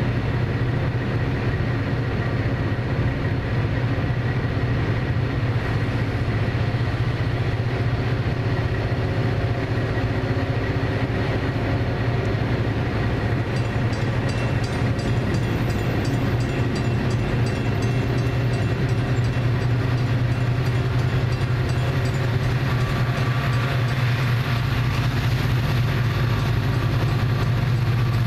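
Diesel locomotives of a heavy 66-car freight train approaching under heavy load, their engines labouring in a steady low drone that grows a little louder near the end. Faint regular high ticks come in from about halfway.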